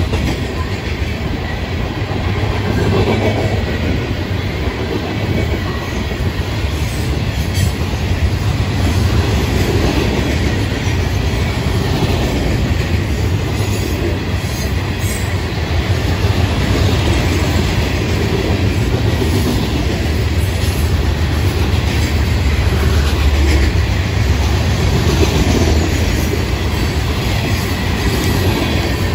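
Florida East Coast Railway freight train's hopper and covered hopper cars rolling steadily past, their steel wheels rumbling and clacking on the rails.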